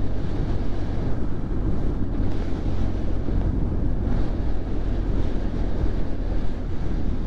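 Yamaha Fazer 600's inline-four engine running steadily under the ride, with wind buffeting the helmet-mounted microphone.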